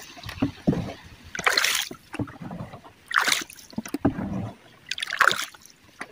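Small wooden canoe being paddled on a river: three paddle strokes, each a splash and swish in the water, about two seconds apart, with fainter low sloshing between them.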